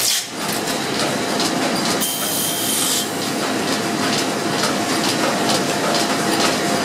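Belt-driven roughing lathe cutting a wooden block into a rough bobbin shape, its cutters shaving the spinning wood, over the steady clatter of line-shaft machinery. A sharper cutting noise comes about two seconds in and lasts about a second.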